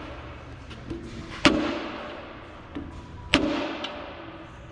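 A 3-pound dead blow hammer strikes the rim of a cast-iron bellhousing twice, about two seconds apart, each time with a lighter tap just before. Each hard blow is followed by a short ringing decay. The blows knock the bellhousing over to center it on the engine.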